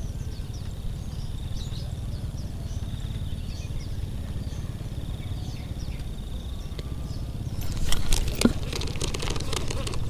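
Outdoor ambience with a steady low rumble, a steady high buzz and small birds chirping. About eight seconds in comes a burst of rustling and sharp clicks.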